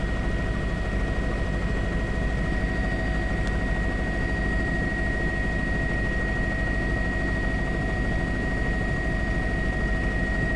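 Steady drone of a light aircraft in flight, heard from inside the cabin, with a thin steady whine above it.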